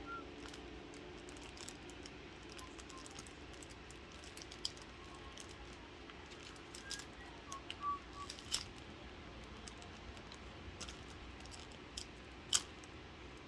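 Trading card packs being handled and opened: scattered light clicks and taps over a faint steady hum, busiest a little past halfway, with one sharper click near the end.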